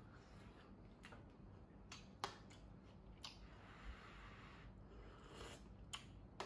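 Quiet eating sounds: a metal spoon clicking lightly against a soup bowl a few times, and a soft slurp of soup from the spoon lasting a couple of seconds, starting about three seconds in.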